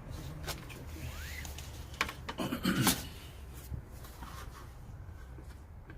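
Scattered clicks and knocks with some rubbing and rustling, loudest about two to three seconds in: handling noise as plastic trim parts are worked on.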